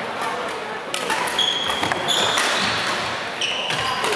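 Sports-hall noise from badminton play on a wooden floor: sharp racket-on-shuttlecock hits and footfalls, with a few short high squeaks of court shoes in the middle and near the end.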